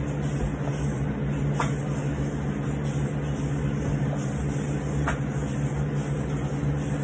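Steady machine hum, like a fan or air conditioner running, with a short sharp slap twice, about three and a half seconds apart, in time with burpee reps.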